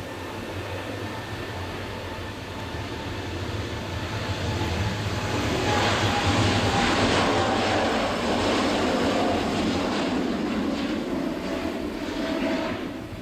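A Boeing 787-8's Rolls-Royce Trent 1000 turbofans running at takeoff thrust as the airliner accelerates down the runway. The jet noise and fan whine swell as it passes, are loudest midway, and ease slightly near the end as it rotates.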